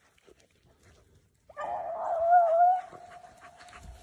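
A beagle giving one long, wavering bawl, starting about a second and a half in, loud at first and then trailing on fainter. It is the hound opening on a rabbit's scent trail.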